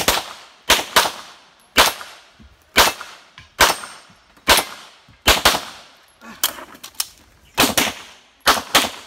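A string of about thirteen gunshots fired at an irregular pace with short gaps, several of them quick pairs of shots, during a practical-shooting stage.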